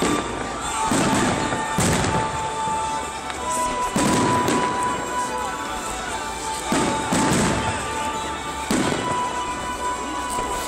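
Fireworks bursting: about six sharp bangs at uneven gaps, two of them close together about seven seconds in.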